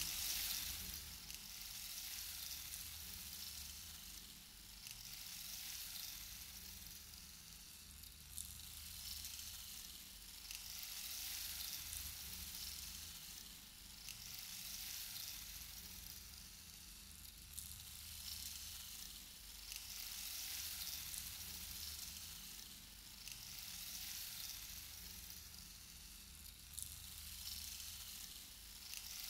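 A high hiss, like sizzling, that slowly swells and fades every few seconds, with a few faint clicks.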